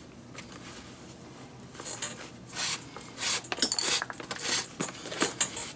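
Leather lace being drawn through the lacing holes of a Mizuno baseball glove's trap-eze web, leather rubbing on leather. It starts about two seconds in as a series of short swishing pulls with small knocks, busiest near the end.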